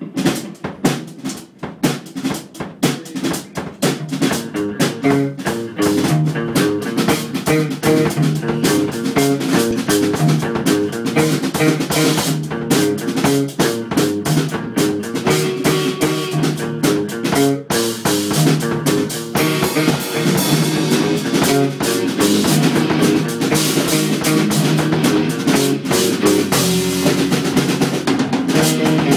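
Live rock band playing an instrumental passage on a drum kit and electric guitars. It opens with sparser drum hits and swells to full volume about six seconds in.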